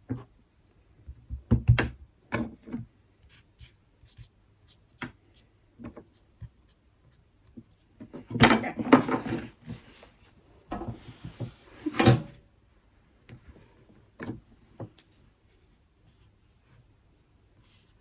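Baking tools and dough being handled on a worktop: scattered light knocks, then a few seconds of rubbing and scraping that end in a sharper knock, followed by a few faint taps.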